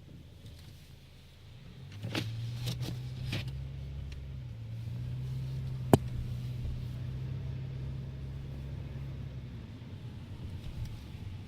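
Car engine running with a low steady hum. A few clicks and knocks come about two to three and a half seconds in, and a single sharp click about six seconds in.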